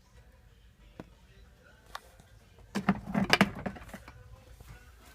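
Handling of a water filter housing and cartridge: single sharp clicks about one and two seconds in, then a short run of loud knocks and rattles a little before the middle.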